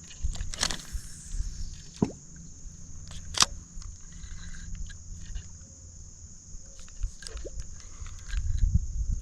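Occasional short plops of a topwater popper lure being twitched across the water surface, the loudest about three and a half seconds in, over a steady high-pitched hum.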